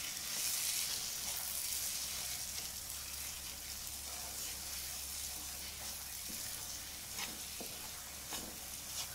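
Moong dal halwa sizzling gently in ghee in a kadhai on a low flame while a wooden spatula stirs it, with a steady hiss and a few soft scrapes against the pan after about six seconds.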